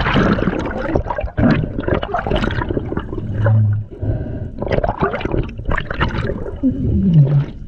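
Water sloshing, splashing and gurgling around a camera bobbing at the sea surface and dipping under, in irregular bursts, with a brief low hum in the middle and a short low falling sound near the end.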